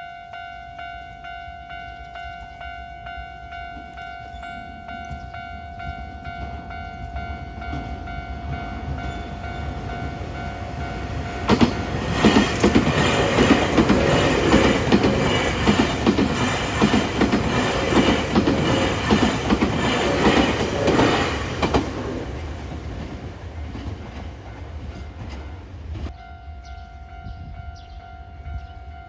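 A level-crossing warning bell rings steadily. About twelve seconds in, a Nankai Koya Line train runs over the crossing for about ten seconds, loud enough to cover the bell. The train sound fades away and the bell is heard again near the end.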